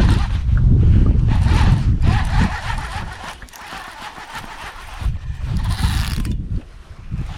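Wind buffeting the microphone, loudest in the first couple of seconds, over the whirring, clicking crank of a fishing reel winding in a hooked fish.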